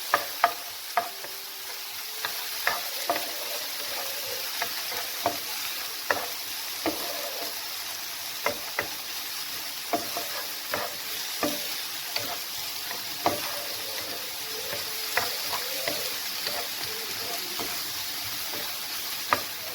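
Diced onion and bell pepper sizzling steadily as they sauté in olive oil in a frying pan, with irregular clicks and scrapes of a utensil stirring against the pan.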